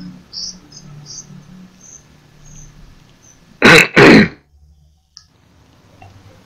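A person clearing their throat twice in quick succession, two short harsh bursts about three and a half seconds in.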